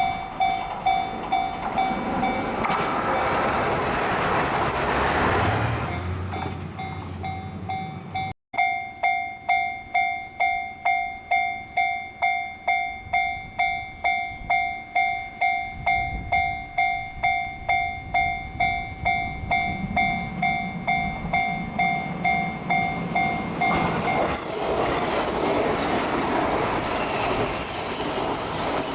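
Japanese level-crossing warning bell ringing at about two strikes a second. A train's rumble and rail noise pass over the crossing a few seconds in, and another train comes through near the end.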